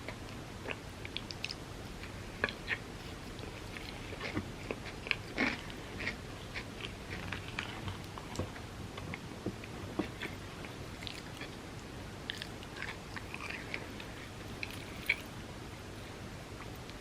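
Close-miked chewing and biting of cookie cups layered with chocolate wafers: irregular small crunches and clicks of the mouth.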